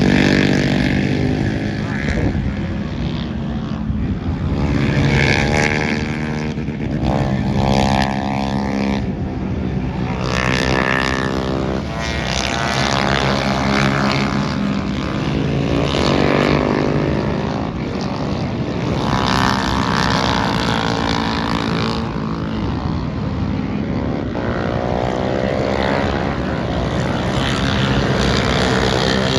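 Engine running hard, its pitch rising and falling several times in long sweeps.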